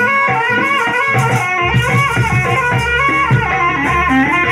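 Loud Javanese folk music: drum strokes under held, wavering melodic lines, amplified through a sound system. A deep bass note comes in about a third of the way through.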